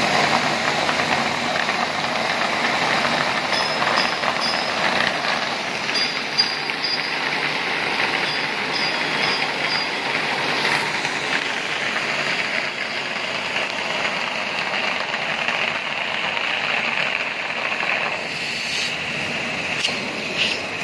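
Plastic water jet ejector running, its outlet discharging a steady rushing, hissing stream of air-laden water into a water tank.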